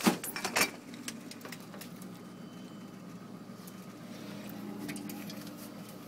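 Handling noise from a phone held close to the microphone: a quick cluster of knocks and rubs in the first second, then scattered faint clicks and rustles over a low steady hum.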